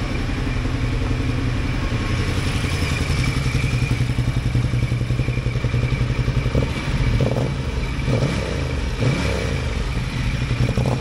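L-twin motorcycle engine idling steadily with an even, fast low pulse, running properly with both oxygen sensors reading alike. A few light knocks and clatters come in over it in the second half.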